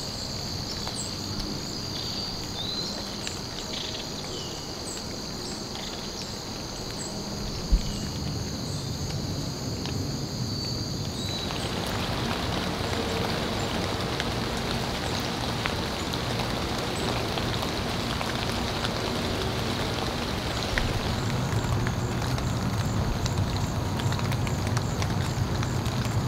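Rain falling on trees and leaves as a steady hiss, growing heavier and fuller from about 11 seconds in. Before that a steady high insect drone with scattered small chirps carries over a quieter patter, and there is a single sharp knock about 8 seconds in.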